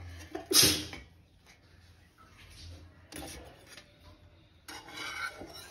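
Toasted sandwiches handled and shifted on a metal plate: a few short knocks and scrapes, the loudest about half a second in, with quiet room tone between.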